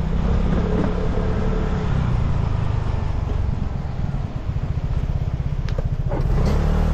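Vespa scooter engine running while being ridden, a steady low hum. A little past the middle it turns into a rapid low pulsing for a couple of seconds, with a few short clicks near the end.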